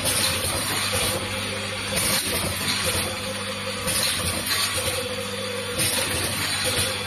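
Rotary powder filling and screw capping machine running: a steady mechanical hum with a short high hiss repeating about every two seconds as it cycles.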